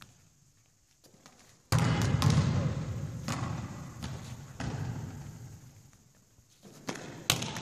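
Volleyballs being hit and bouncing on a sports-hall floor: a loud thud about a second and a half in, then several more knocks, each ringing on in the hall's echo, and two more near the end.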